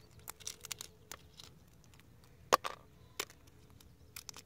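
Eggshell cracking and snapping as fingers pick pieces off an unhatched chicken egg: an irregular run of small sharp clicks, the loudest about two and a half seconds in.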